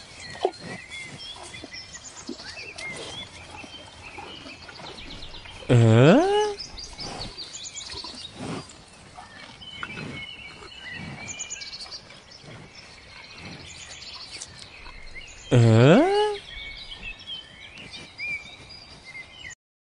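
A cat crunching dry kibble from a bowl, with two loud rising cat calls about ten seconds apart, and birds chirping in the background.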